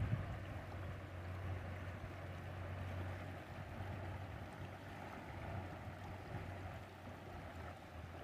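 A swollen river rushing over rocks: a steady wash of flowing water, with a low steady rumble underneath.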